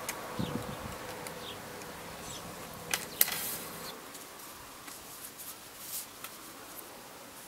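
A flying insect buzzing close by: a steady hum that fades after about four seconds. A couple of sharp clicks come about three seconds in.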